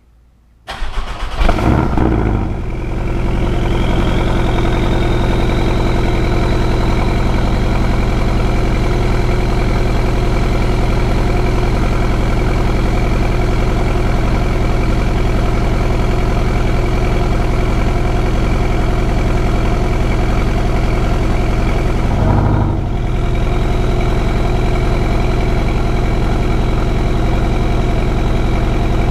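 A 2019 Porsche 718 Cayman GTS's turbocharged flat-four on the stock exhaust, heard close to the tailpipe. It starts under a second in, flares up loudly for a moment, then settles into a steady idle. About three-quarters of the way through, the note briefly dips and swells once.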